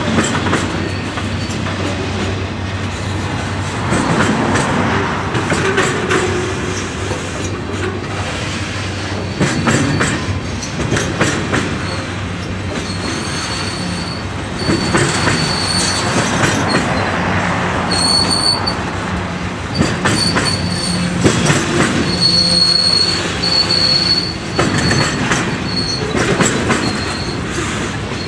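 CSX work train of flatcars carrying track-maintenance machines rolling past, its wheels clattering on the rails. From about halfway on, a high-pitched wheel squeal comes and goes.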